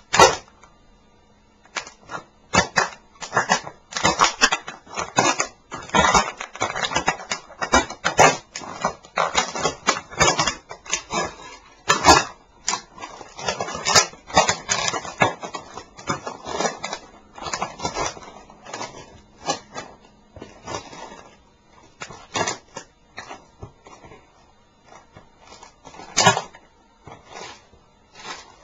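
Toy Leopard tank model being crushed under sneakers: irregular cracking and crunching snaps as it breaks apart, fast and dense through the middle, thinning to occasional cracks later on.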